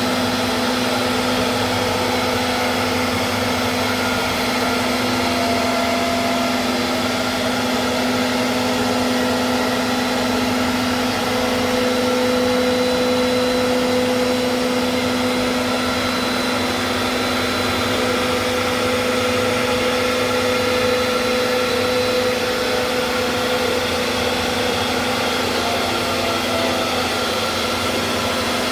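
A machine motor running steadily: a constant hum and whine over a rushing hiss, unchanging throughout.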